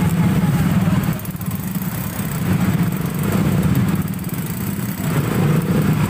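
Motorcycle and scooter engines idling, a steady low hum.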